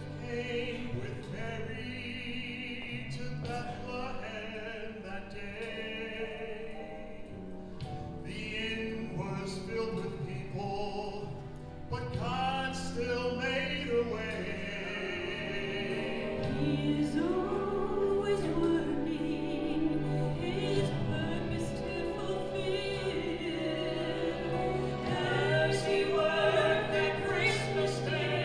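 Singing with strong vibrato over sustained instrumental accompaniment, growing louder from about halfway through.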